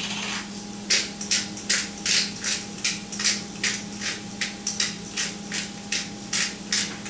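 Hand-held pepper mill grinding black pepper, a quick run of crunching twists at about two and a half a second, starting about a second in and stopping near the end.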